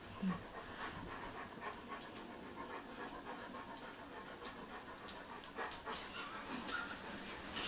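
A dog panting steadily, with a few louder breaths a little past halfway.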